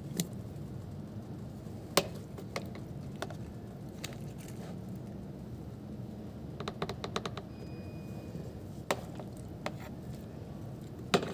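Scattered sharp clicks and taps over a steady low hum, with a quick run of about eight clicks around seven seconds in.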